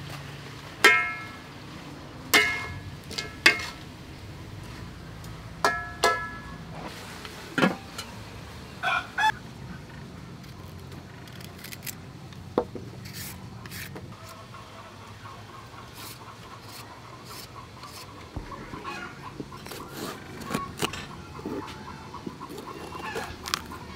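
Chickens clucking: a series of short, sharp calls in the first ten seconds, fainter and scattered after that, over a low steady hum.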